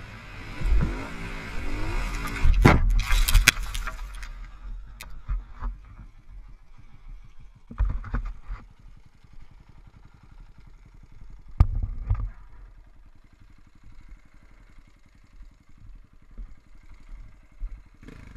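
Husqvarna TE610 single-cylinder four-stroke dirt bike going down in a crash: rushing wind and engine noise, then loud thuds and clatter about three seconds in. After that the engine idles with a fast, even pulse, broken by a couple more knocks.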